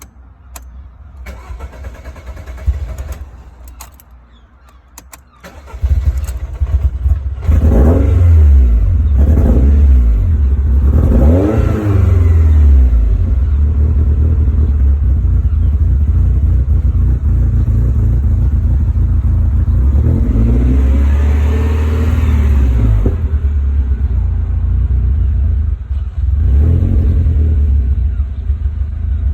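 Warm car engine that is hard to restart cranking for several seconds, then catching about six seconds in. It is revved up and down three times in quick succession and once more later, and otherwise runs at a rough idle.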